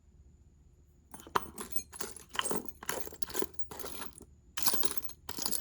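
Small metal tool parts clinking and rattling as a drawer full of bits and pieces is rummaged through by hand. The clattering starts about a second in and comes in irregular short bursts.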